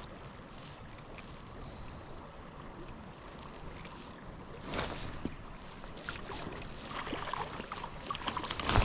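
Small creek water running steadily, with a single splash about five seconds in and a spell of splashing and sloshing that builds near the end.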